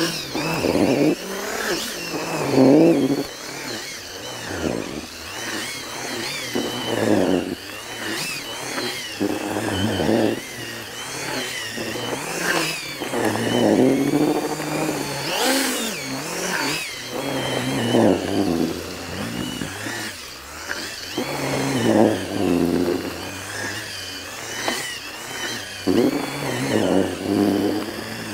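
Power drill with a mixing whisk spinning through a bowl of damp leam and groundbait, revved up and down in repeated surges every few seconds while the mix is blended.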